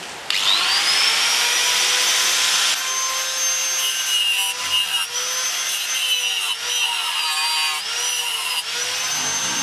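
A small electric angle grinder spins up with a rising whine about a third of a second in. It then runs at speed, cutting through a welded metal bracket, and its pitch dips again and again as the disc bites into the metal.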